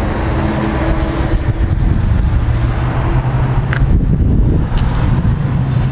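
Steady low rumble with a constant droning hum, mixed with wind noise on the microphone.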